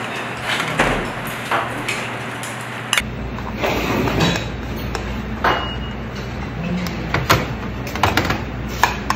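Kitchen serving sounds: a metal ladle scooping soup and knocking on the pot and bowl, then, from about three seconds in, a plastic rice paddle scraping and tapping against a rice cooker's inner pot and a ceramic bowl as rice is dished out. The knocks and clinks come at an irregular pace over a steady background hum.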